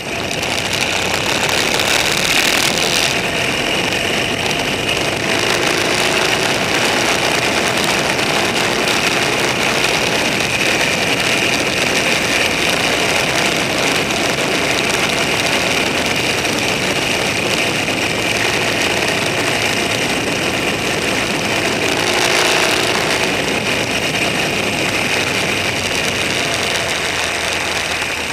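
A vehicle engine running steadily under way, under a constant rush of wind and road noise, swelling briefly about two seconds in and again around 22 seconds in.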